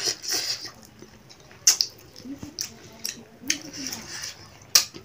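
Mouth sounds of people eating chicken by hand: chewing and several sharp, wet lip smacks, the loudest a little under two seconds in and again near the end.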